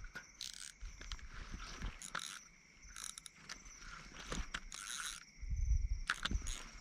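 Crickets chirping steadily, with scattered clicks and brief rustling from handling, and a low thump about five and a half seconds in.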